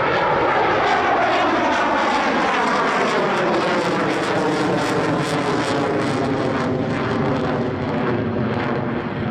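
McDonnell Douglas F/A-18 Hornet's twin General Electric F404 jet engines running loud in afterburner as the jet climbs away, the pitch sweeping down over the first few seconds as it passes.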